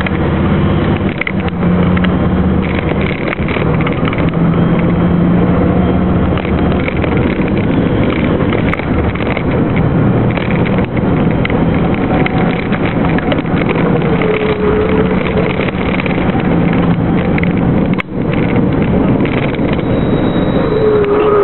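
Truck engine running under load, heard from inside the cab, with wind and road noise. Its pitch shifts a few times and the level dips briefly about eighteen seconds in.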